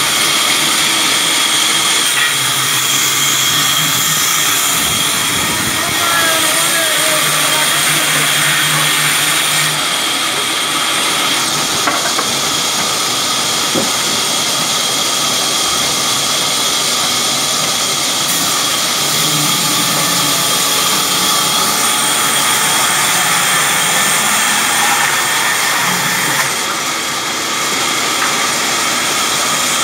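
Large belt-driven sawmill band saw running steadily and cutting through a wooden slab: a dense, even rush of noise with a constant high whine.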